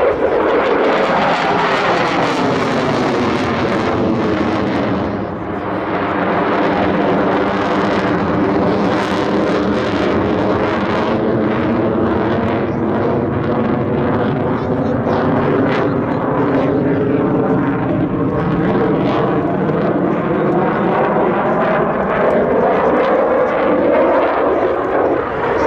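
Aircraft engine running loud and steady, its tone sliding slowly lower and then rising again near the end.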